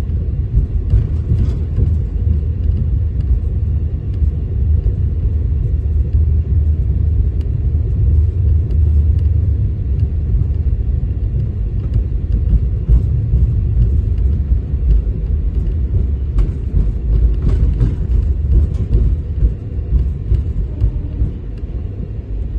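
Moving train heard from inside the coach: a steady low rumble of wheels on the track, with scattered clicks and rattles.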